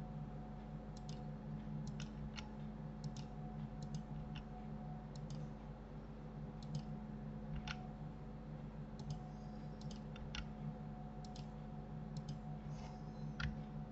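Computer mouse and keyboard clicks: faint single clicks at irregular intervals as vertices are selected and moved, over a low steady electrical hum.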